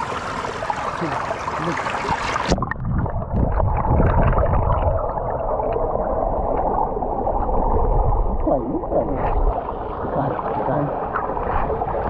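Running water gurgling among stones; the sound turns duller about two and a half seconds in.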